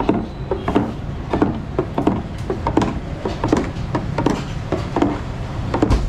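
Metal rod stirring thick lassi cream in an aluminium tray, knocking against the tray in quick, uneven strokes about two or three times a second.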